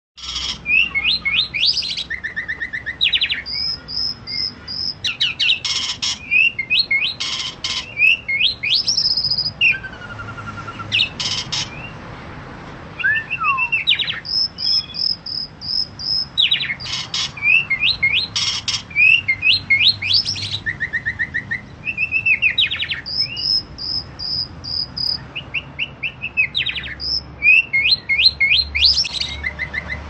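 Javan pied starling (jalak suren) singing a long, varied song of rapid rattling notes, trills and rising and falling whistles, with a short lull about a third of the way in.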